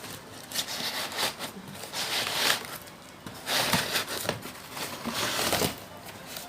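Packaging being handled during unboxing: irregular bursts of crinkling, rustling and tearing, louder in the second half.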